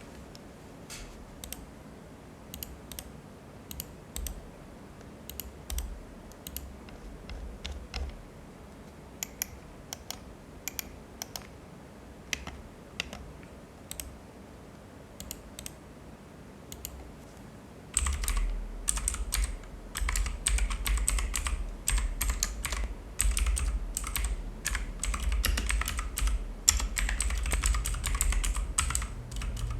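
Onikuma Haru mechanical keyboard with clicky blue switches being typed on: separate keystrokes about one or two a second at first, then fast continuous typing, louder, from about two-thirds of the way in.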